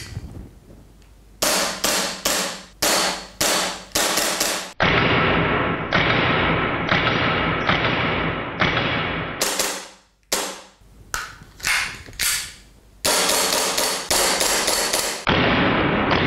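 WE G-Force G19 gas blowback airsoft pistol firing repeatedly, each shot a sharp crack with the slide cycling. Shots come in a quick string of about two or three a second, then in stretches where each shot rings on longer.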